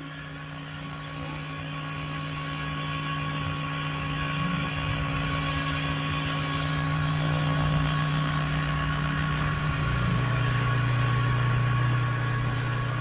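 A steady humming drone over a hiss, slowly growing louder, with its low hum dropping in pitch about ten seconds in: a hovering-UFO sound effect.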